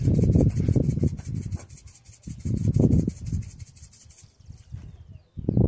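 Low rumbling, rubbing noise on the microphone in a few loud bursts, with a fast even ticking in the highs that stops about four seconds in.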